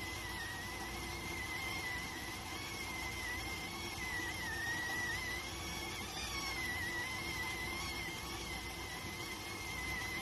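Electric cooker (電鍋) whistling as it cooks: a continuous high whistle that wavers slightly in pitch, over a steady hiss and low rumble.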